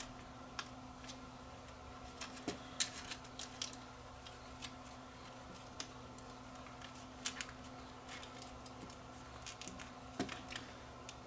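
Scattered small clicks and taps of hands handling a Sony CCD-TR33 camcorder's small plastic parts while reconnecting its viewfinder, over a faint steady hum.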